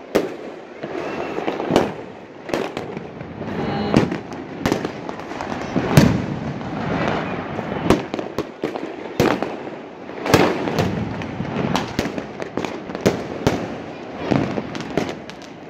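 Fireworks going off: a dense, irregular run of sharp bangs and crackles, the loudest about six seconds in, as aerial shells burst overhead.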